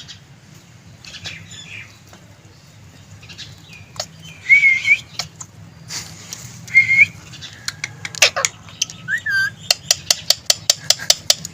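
Green ring-necked parakeet giving a few short whistled notes a couple of seconds apart, some rising in pitch, followed near the end by a quick run of sharp clicks.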